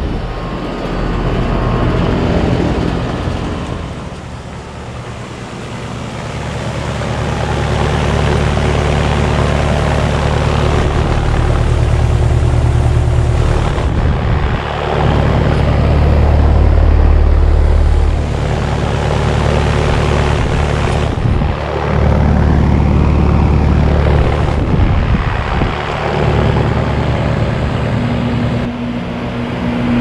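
Outdoor heat pump units running in heat mode: a steady low hum with the rush of the condenser fan, changing in loudness and tone as different units are passed.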